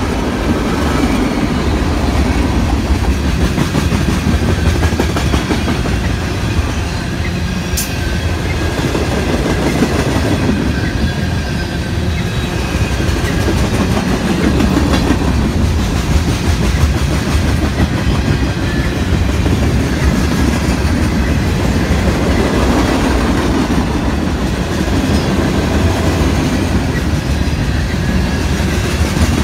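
Freight cars of a CSX mixed freight train rolling past close by: a steady rumble and clatter of steel wheels on the rails, with faint high-pitched wheel squeal at times and one sharp click about eight seconds in.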